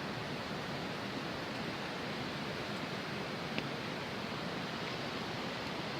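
Steady rushing of a nearby waterfall, an even wash of water noise, with one faint click about three and a half seconds in.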